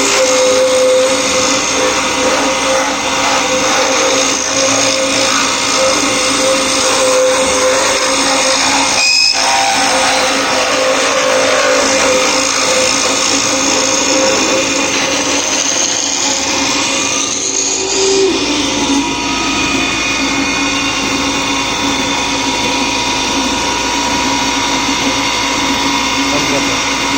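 Cane milling (sizing) machine running steadily with a loud motorized whir, its tone shifting briefly around seventeen to eighteen seconds in.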